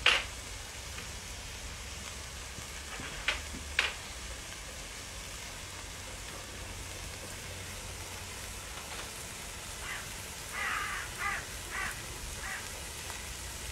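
Goat meat curry frying in a pot, giving a faint, steady sizzle. A sharp click comes at the start and two more about three and four seconds in. A run of short, scratchy sounds comes near the end.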